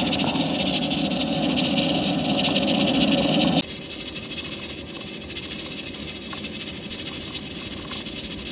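Electric pressure rice cooker letting off steam through its vent: a steady hiss, louder for the first three and a half seconds, then dropping suddenly to a fainter hiss.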